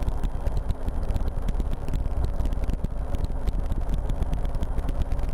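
RotorWay experimental helicopter in flight: engine and rotor running at a steady cruise as a continuous drone, with a rapid, even pulsing.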